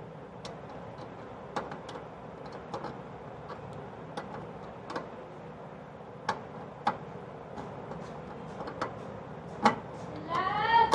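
Small steel spanner clicking and tapping against the brass gas jet and burner valve fitting as the jet is screwed back on. The clicks are irregular, about one a second. Near the end a cat gives a short meow.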